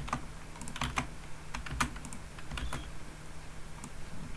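Computer keyboard keys clicking in scattered, irregular keystrokes, about a dozen, over a faint steady low hum.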